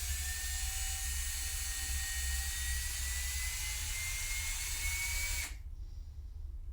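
Electric drill running steadily, a faint whine in it slowly rising in pitch. About five and a half seconds in, the high hiss cuts off and only a low hum is left.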